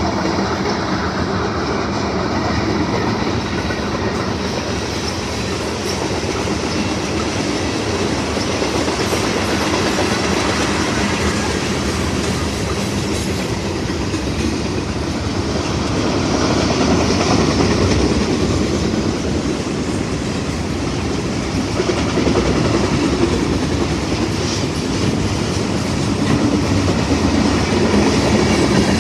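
A train's cars rolling steadily past, the wheels clacking over the rail joints in a continuous rumble.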